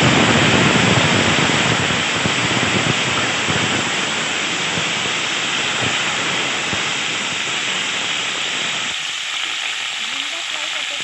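Moringa drumstick pieces sizzling loudly in hot oil in a metal pan, freshly added and stirred with a spatula. The sizzle is strongest at first and eases a little near the end.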